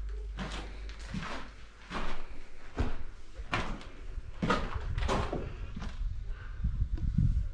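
An old wooden casement window being unlatched and pushed open, with a string of knocks and scrapes, the loudest about four and a half to five seconds in. Before that come a few steps across plaster rubble.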